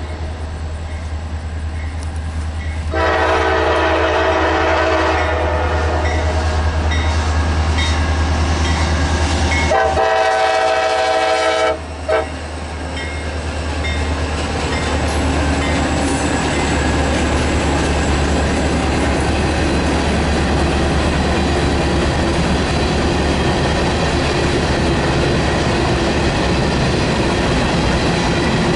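Approaching CSX freight train led by EMD GP40-2 diesel locomotives, engines running, sounds its horn in two long blasts: one from about three seconds in, another about ten seconds in. The locomotives and a string of covered hopper cars then roll past with steady wheel-on-rail noise.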